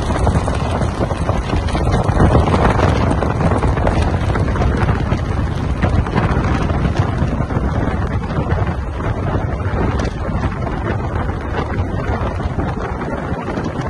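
Wind buffeting the microphone and water rushing past the hull of a boat running fast, a loud steady rush with no engine note standing out.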